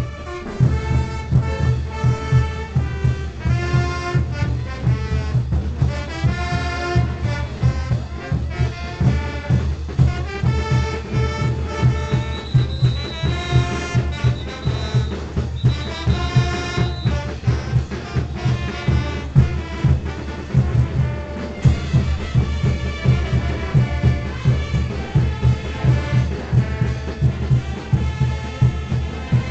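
Brass band music: horns play a melody over a steady drumbeat.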